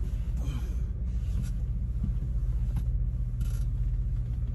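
Truck engine idling, a steady low rumble heard from inside the cab, with a few faint scrapes and clicks of handling on top.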